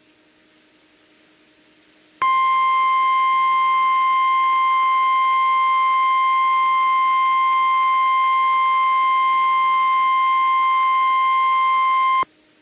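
National Weather Service 1050 Hz warning alarm tone: a single steady high-pitched beep, held unchanged for about ten seconds, starting about two seconds in and cutting off suddenly. It is the attention signal that announces a weather warning message is about to follow.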